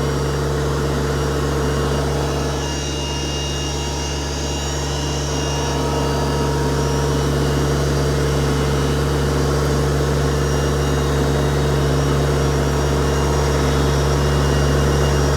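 LS MT125 compact tractor's diesel engine running steadily while the tractor drives carrying a heavy load, dipping slightly about two seconds in.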